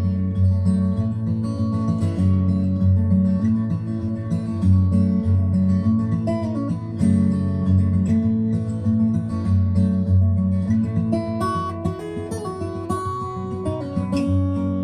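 Guitar music played at full volume through a pair of Aiwa Exos-9 Bluetooth speakers in stereo, with plucked guitar over a strong, full bass line.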